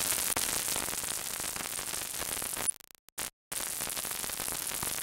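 ARP 2600 V software synth patch of two cross-modulated, ring-modulated oscillators with oscillator sync switched on, giving a harsh, hissing noise with its most energy in the highest treble: a bit extreme, not yet shaped by the envelope or filter. The noise breaks off a little past halfway, returns for a moment, then resumes until just before the end.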